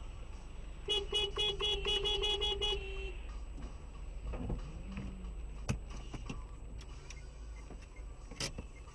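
A car horn sounds for about two seconds, starting about a second in, in a rapid stutter of short blasts. Under it runs steady car and road rumble, with a few sharp clicks later on.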